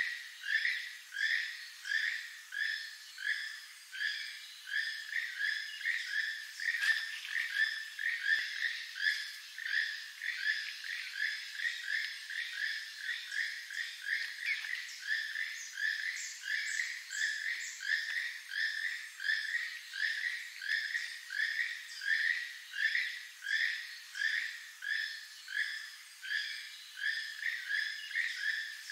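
Keel-billed toucan song: a frog-like croak repeated steadily, about two to three times a second.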